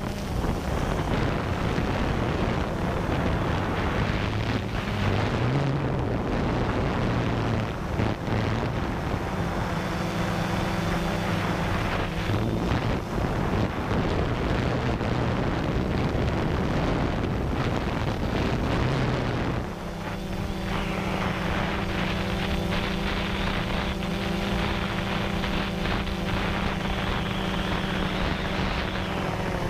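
DJI Phantom 2 quadcopter's electric motors and propellers humming steadily, heard close up from the GoPro mounted on the drone, with wind rushing over the microphone. About two-thirds of the way through, the hum dips briefly and then settles at a higher, steadier pitch.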